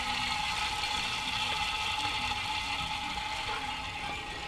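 Used engine oil being drained from a small Honda engine, a steady flow of liquid.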